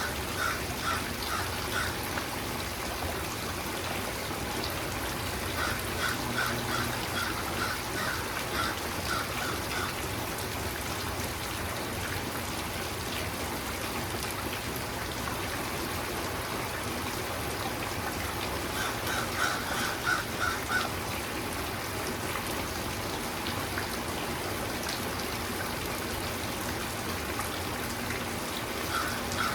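Steady rain falling and trickling. A bird calls over it in short runs of quick repeated notes, four times.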